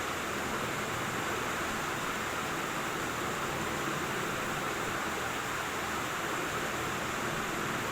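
A pan of masala milk tea boiling up hard on the stove: a steady, even hiss of bubbling.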